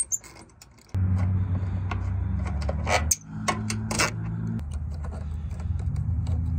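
Metal clicks and clinks of a socket wrench working the air intake box bolts. About a second in, a steady low engine hum starts, which is the loudest sound, and it shifts in pitch twice.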